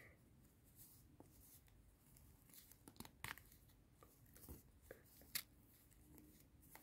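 Near silence, with a few faint, short paper rustles as a small folded paper packet is handled and eased open along its perforation.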